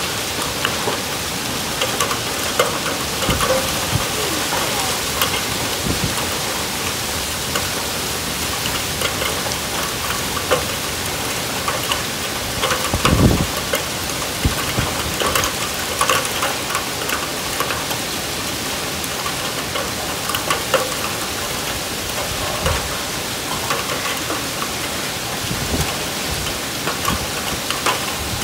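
Heavy storm downpour: a steady hiss of rain with many sharp ticks of drops hitting nearby surfaces, and a short low thump about halfway through.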